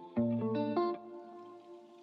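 Background music: a short phrase of plucked string notes begins just after the start and dies away after about a second.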